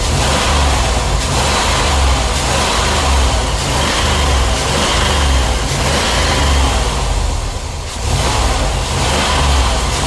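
Car engine running after a tune-up with a new ignition coil, distributor cap, rotor, spark plugs and wires, its misfire cured. A steady deep rumble rises and falls, easing briefly about three quarters of the way in.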